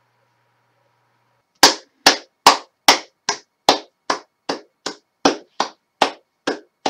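One person clapping their hands slowly and steadily: about fifteen claps, a little over two a second, starting about one and a half seconds in.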